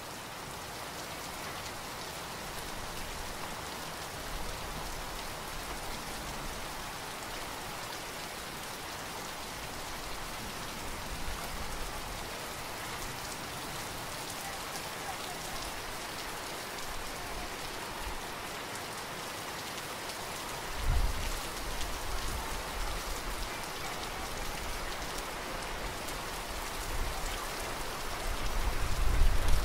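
Heavy rain falling steadily on flooded ground, an even hiss of drops. A low rumble comes in about two-thirds of the way through and swells again near the end.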